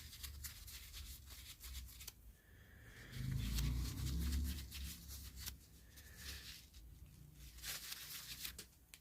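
Faint rubbing, scraping and small clicks of metal flashlight parts being handled and wiped clean, with a low, muffled bumping about three to four and a half seconds in.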